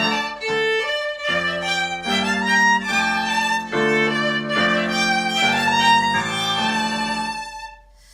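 Chamber music for three violins and piano: slow, sustained bowed chords changing every second or so, fading away near the end.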